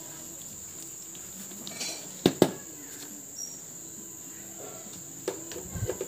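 A steady high-pitched insect drone, like a cricket, over quiet room noise. Two sharp clicks come a little past two seconds in, and a few lighter knocks near the end.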